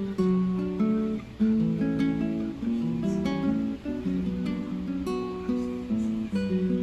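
Background music: acoustic guitar playing a light melody of plucked notes.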